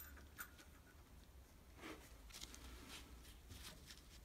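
Near silence, broken by a few faint, scattered clicks and scrapes as small metal screwdriver parts are handled.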